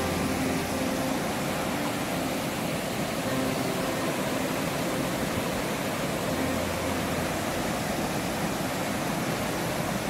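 Mountain river rapids rushing over a boulder-strewn bed: a steady, even roar of white water.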